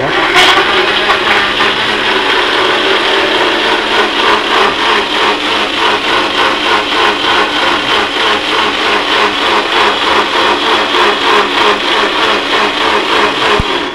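Single-serve blender motor running steadily for about fourteen seconds, its blade churning mango pieces and milk into a thick pulp. It starts at once and cuts off just before the end.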